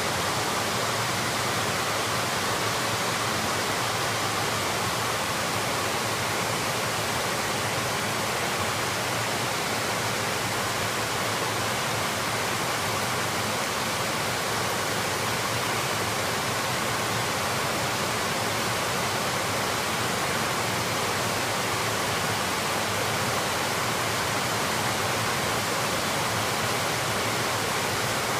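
Heavy monsoon rain falling in a steady, unbroken downpour.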